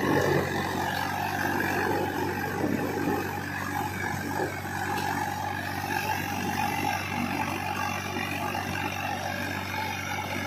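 Swaraj 744 FE tractor's three-cylinder diesel engine running steadily under load as the tractor works through a muddy, waterlogged field.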